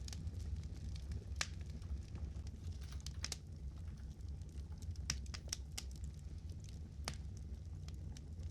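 Fire crackling: sharp, irregular pops every second or so over a steady low rumble.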